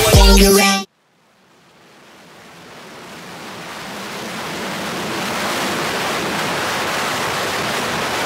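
Loud electronic music cuts off abruptly just under a second in; then a steady rushing wind noise fades in over about four seconds and holds. This is wind buffeting a microphone on a motorcycle moving at highway speed, with no engine note audible.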